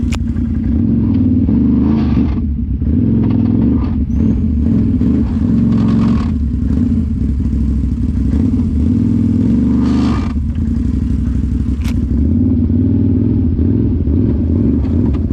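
Can-Am 1000cc V-twin side-by-side engine running under throttle on a trail ride, pulling steadily and easing off briefly a few times, about two and a half, four and ten seconds in.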